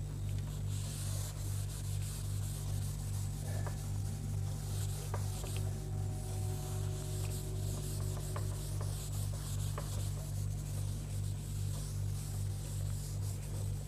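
A duster rubbing marker writing off a board in repeated wiping strokes: a soft swishing hiss that swells and fades with each stroke. A steady low hum runs underneath.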